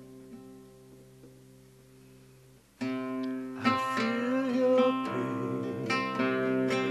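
Acoustic guitar music. A chord rings and slowly dies away, then about three seconds in the music comes back in loudly with fuller chords.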